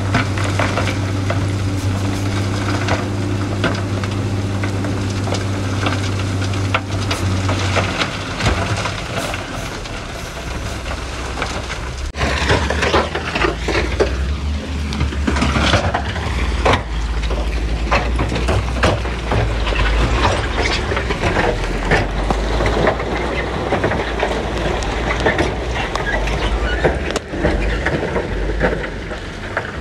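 Heavy diesel earthmoving machinery running, with stones knocking and clattering as rock is dumped and pushed. A steady engine note gives way to a deeper one about eight seconds in, and the clatter of rock is thickest in the second half.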